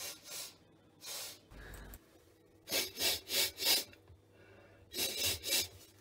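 A man sniffing with his head inside a washing machine drum, smelling the freshly cleaned drum. Short sniffs come one by one, then a quick run of three in the middle and another pair near the end.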